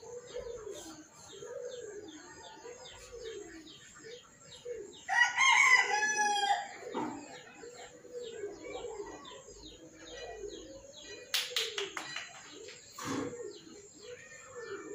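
Birds calling: one loud, drawn-out call about five seconds in, over low calls that repeat about once a second throughout.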